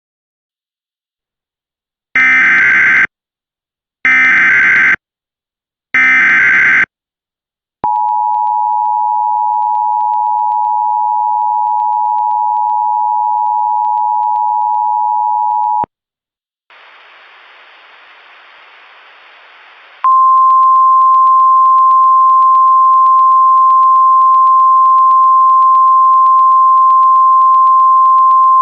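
Mock Emergency Alert System tones: three short data-burst bleeps of the SAME header about two seconds apart, then the two-tone EAS attention signal held steady for about eight seconds. After a few seconds of faint hiss, a single steady alert tone of the kind NOAA Weather Radio uses starts about twenty seconds in and holds.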